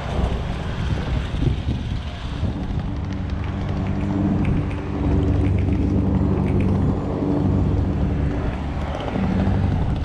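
Wind rumbling on the microphone, then a steady low engine hum with several even tones that sets in about two and a half seconds in and fades near the end.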